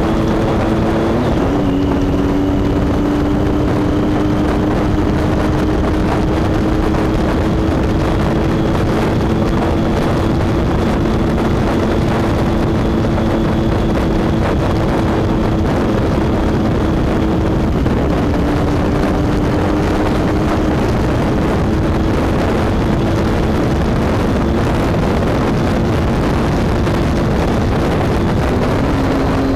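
Motorcycle engine running under way, heard from the rider's seat over heavy wind rush on the microphone. Its note drops sharply about a second in and again about two-thirds of the way through, as with upshifts, and climbs slowly in between as the bike speeds up.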